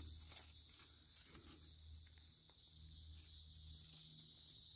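Near silence with faint outdoor ambience: a steady high-pitched insect drone over a low hum, and a few faint ticks.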